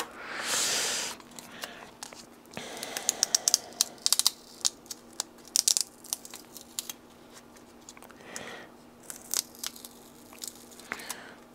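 Sticky masking tape being peeled off a servo hatch plate on a model aircraft wing. There is a rip about a second long at the start, then scattered crackles and clicks as the tape is pulled away and handled, and a second short rip in the middle.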